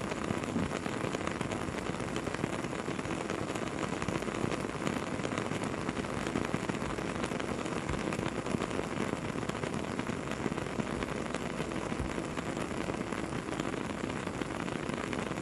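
Campfire crackling and hissing steadily, with many small pops and snaps throughout.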